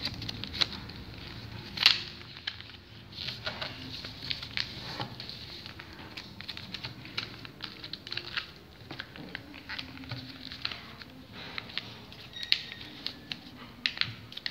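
Sheet of paper being folded and creased by hand: irregular rustling and crinkling, with a sharper crackle about two seconds in.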